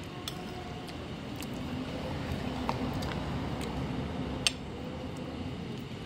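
Metal spoon clicking and scraping against a glass bowl a few times, with one sharper click about four and a half seconds in. Under it is a steady low rumble that swells slightly about two seconds in.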